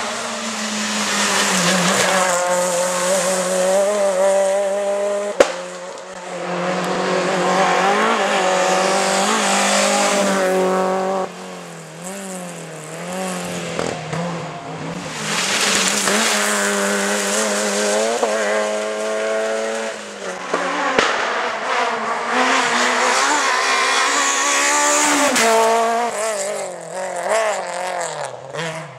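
Rally cars at speed on a tarmac stage, their engines revving high and dropping back again and again through gear changes and braking as they pass one after another.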